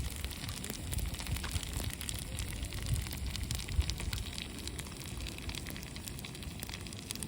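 Wood fire burning in a fire pit, crackling with many small irregular pops over a low rumble, with one sharper pop a little before the middle.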